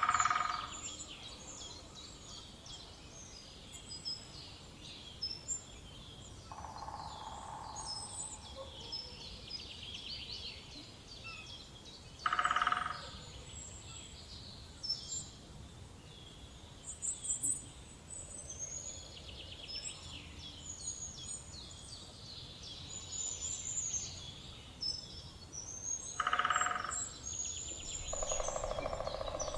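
Woodland bird chorus: many small birds chirping and singing throughout. A louder, lower call comes three times, about every 13 seconds, with two longer, lower rattling sounds between them.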